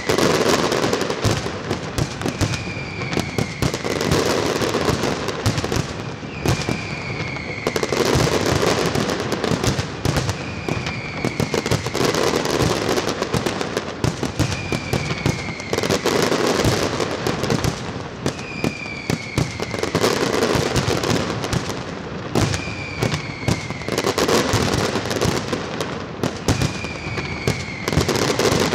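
Pirotecnia Martí fireworks display: a continuous barrage of crackling effects and bursting shells. A short whistle-like tone falling in pitch repeats about every two seconds.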